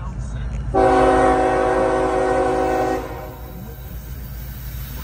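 Diesel locomotive air horn sounding one long blast of about two seconds, several notes held together as a chord, starting just under a second in, over a steady low rumble.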